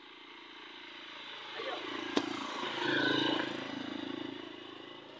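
A motor vehicle passing on the road, its engine and tyre noise growing louder to about three seconds in, then fading away. A single sharp click about two seconds in.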